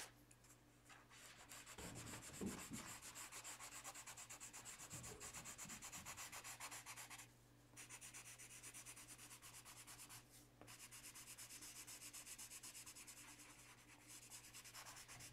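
Colored pencil shading on paper: faint, quick back-and-forth scratching strokes, with two short pauses.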